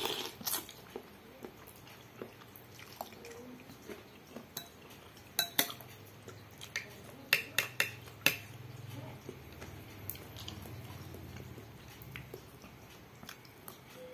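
Metal spoon and fork clinking against a glass bowl of instant noodle soup, with a run of sharp clinks around the middle, between quieter eating sounds of slurping and chewing noodles.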